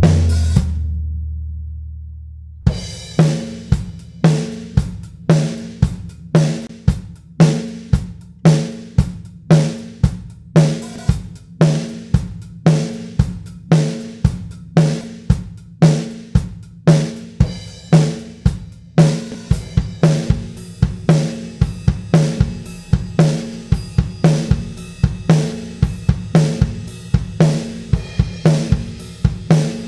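Recorded acoustic drum kit (kick, snare, hi-hats and cymbals) playing a steady groove, squashed on the drum bus by the Acustica Audio ARCTIC compressor/saturator plugin. A low ringing tail dies away first. The beat comes in about two and a half seconds in and gets busier with more cymbal about two-thirds of the way through.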